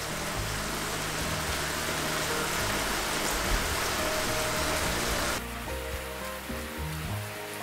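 Background music with a steady sizzling hiss of food frying in a pan, which cuts off about five seconds in while the music carries on.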